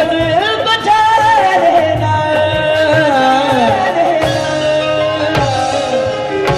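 Punjabi devotional song performed live: a male voice sings long, gliding melismatic notes over steady musical accompaniment, with a few dholak strokes in the second half.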